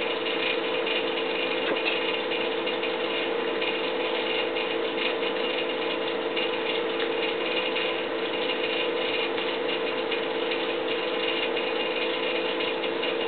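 Steady mechanical background noise of unidentified origin: a constant hum with a fast, fine rattle over it, unchanging throughout.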